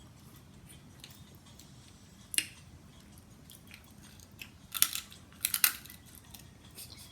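Snow crab leg shells being cracked open: one sharp crack about two and a half seconds in, then a quick run of several cracks around five seconds.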